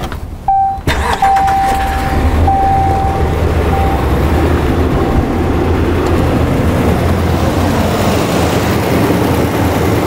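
A 2014 Ram 2500's 6.4-litre Hemi V8 being started: it cranks and catches about a second in, then keeps running. A high whine comes and goes over the first few seconds. The engine has a multiple-cylinder misfire, which is traced to bad coil drivers in the PCM that never fire the coils on some cylinders.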